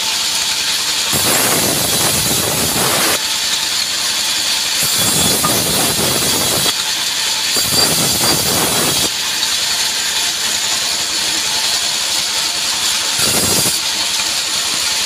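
Band saw mill running, its blade cutting mahogany slabs. The machine gives a steady loud hiss, and each pass through the wood adds a fuller cutting sound lasting one to two seconds, four times.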